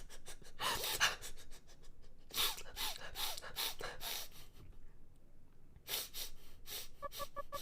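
A person gasping and breathing hard in repeated bursts. Near the end come four quick, short pitched tones.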